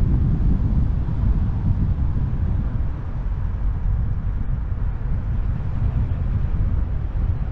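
Moving car's wind and road noise: a steady low rumble of air rushing past the microphone and tyres on asphalt.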